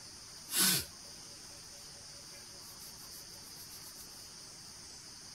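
Steady high-pitched night chorus of crickets and other insects, with a faint fast pulsing chirp joining around the middle. About half a second in comes one short, loud, hiss-like rush of noise, the loudest sound here.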